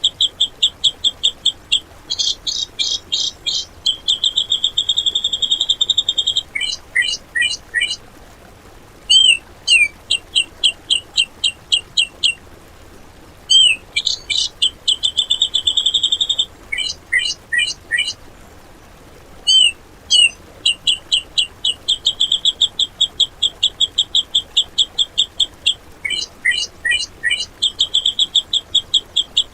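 A grey-cheeked bulbul (cucak jenggot) singing, in rapid-fire runs of repeated high, harsh notes (the 'tembakan' style) lasting a few seconds each. The runs are broken by brief pauses and short chattering phrases.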